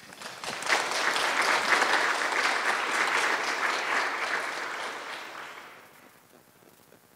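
Audience applauding: the clapping swells within the first second, holds for several seconds, then dies away about six seconds in.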